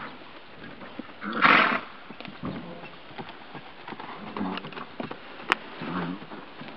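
Quarter Horse mare under saddle on grass: one loud snort about a second and a half in, then a few softer thuds and a single sharp click near the end.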